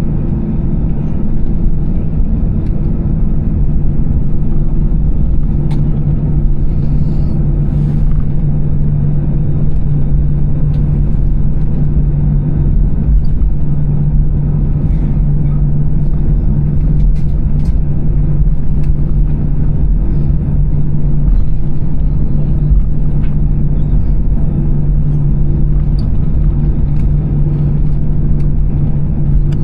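Airbus A320-214 cabin noise: a loud, steady low rumble with a constant drone from the engines and airflow, heard from inside the passenger cabin, with a few faint clicks over it.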